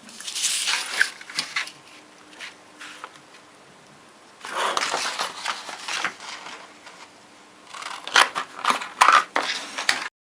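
A sheet of paper being handled and creased, rustling and crinkling in three spells with sharp crackles.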